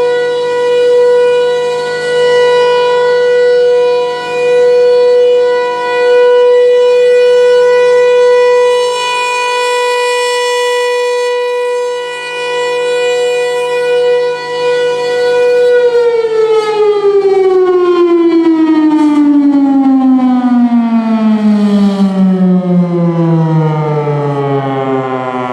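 Federal Signal Thunderbolt 1000 single-tone tornado siren sounding its steady alert tone, swelling and fading every couple of seconds as the rotating head sweeps past. About two-thirds of the way through it shuts off and winds down in a long falling pitch, ending the alert signal.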